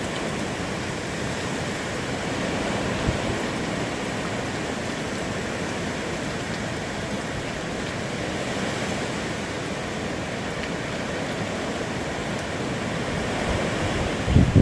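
Hurricane Irma's wind blowing steadily, a constant rushing noise with no let-up. A brief low thump comes near the end.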